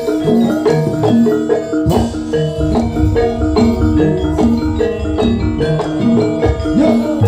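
Live jaranan gamelan music: struck metal keyed instruments play a quick repeating pattern of short notes over steady drumming.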